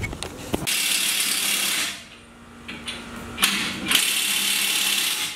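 Ratchet wrench working bolts on the truck's rear suspension during a rear lift install, in two runs of about a second each, one near the start and one near the end, with a sharp clack in between.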